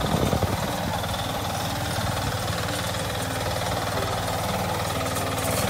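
Single-cylinder 8 hp diesel engine of a walk-behind reaper running steadily with a fast knocking beat as the machine cuts into tall sorghum stalks.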